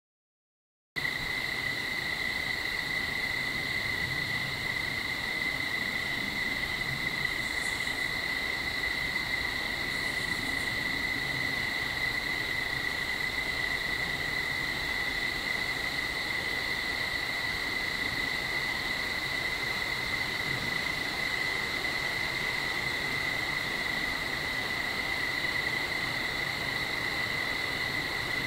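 Insects trilling in a steady, unbroken chorus, a continuous high tone that starts about a second in.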